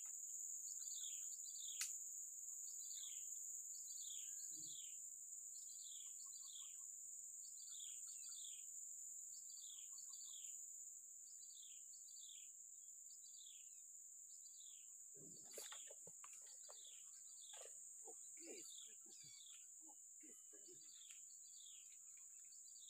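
Faint insects droning in a steady high pitch, with a bird repeating a pair of quick falling notes about once a second throughout. A couple of sharp clicks break in, one near the start and one about two thirds of the way through.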